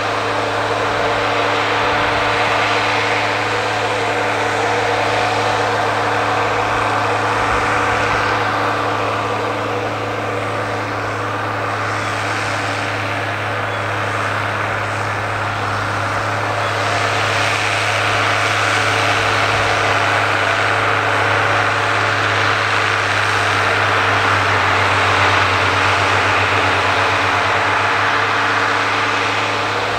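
Ford 9700 tractor's turbocharged six-cylinder diesel running steadily under load while pulling a five-bottom plow.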